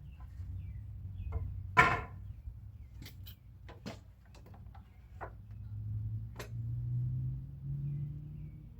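Scattered knocks and clicks from pressure-treated 2x2 lumber and tools being handled, the loudest knock about two seconds in. In the last few seconds a low hum slowly rises in pitch.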